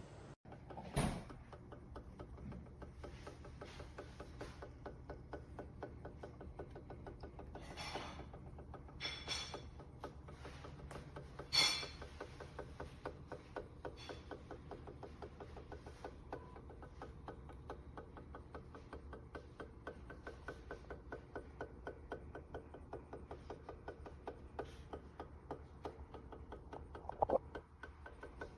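Laminator running, its rollers turning with a steady low hum and a fast, even ticking like a gear train. A few louder brief scrapes or rustles stand out about a second in, around eight to twelve seconds in, and near the end.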